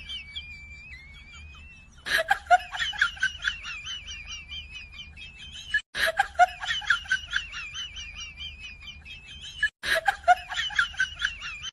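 High-pitched laughter sound effect, looped: it starts afresh about two, six and ten seconds in, with a brief cut-out before each restart.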